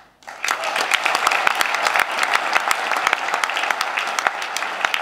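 Audience applauding, breaking out suddenly just after the start as a dense, steady clapping.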